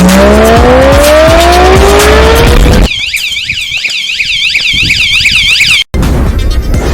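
Loud music with a rising whine for about three seconds. Then a piezo anti-theft alarm siren warbles rapidly, about four sweeps a second, and cuts off abruptly about six seconds in.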